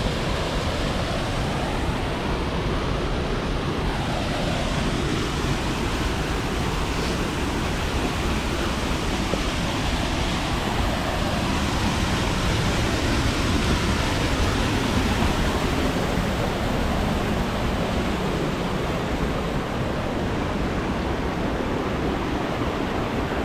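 White-water rapids of the River Tees rushing steadily.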